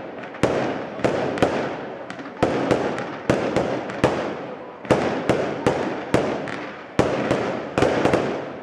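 Aerial firework shells bursting overhead in a rapid run of about fifteen sharp bangs, roughly two a second. Each bang trails off in a long rolling echo.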